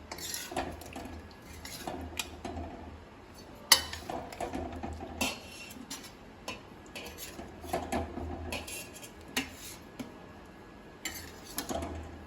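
A metal spoon scraping and knocking against a kadhai as it stirs, in irregular strokes, with one sharper clank about four seconds in.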